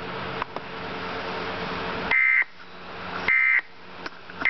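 Steady hiss, then, about two seconds in, the Emergency Alert System end-of-message code: short, shrill bursts of digital data warble about a second apart, signalling the end of the alert. The third burst starts at the very end.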